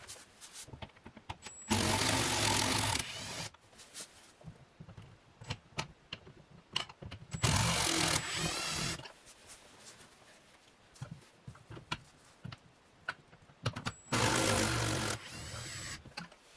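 Cordless drill/driver running in three short bursts, about a second and a half each, backing out the Torx T20 screws from a BMW E90 door, with small clicks and handling noises in between.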